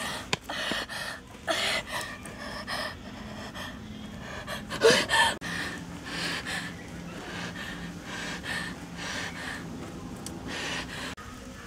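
A person's short, rasping breaths and gasps, repeated every half second to a second, with one louder gasp near the middle.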